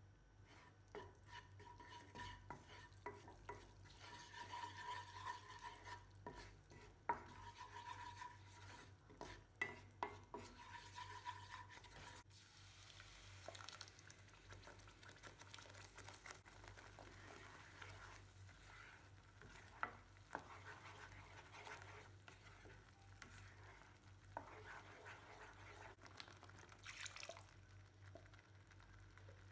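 A spoon stirring food in a pan, scraping and knocking against the metal now and then, over a light sizzle.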